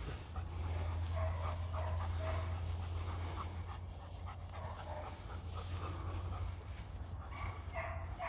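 A dog panting as it trots at heel, over a steady low rumble.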